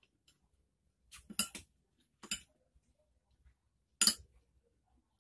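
A few short, sharp clinks of a spoon against dishes: a quick cluster of them about a second in, one more just after two seconds, and the loudest about four seconds in.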